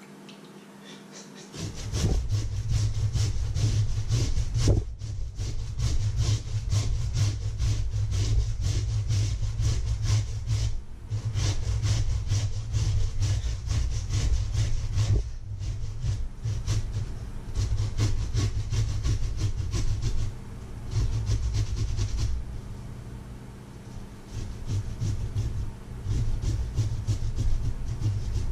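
Raw potatoes grated on a handheld metal grater resting in a stainless steel bowl: rapid rasping back-and-forth strokes that start about a second and a half in and go on with a few short pauses.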